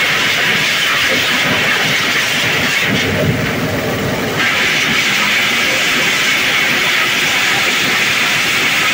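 Areca nut dehusking machine running on its small engine: a loud, steady mechanical din with a hissing rattle. About three seconds in, the hiss briefly drops away and a lower rumble swells for a second or so before the steady noise returns.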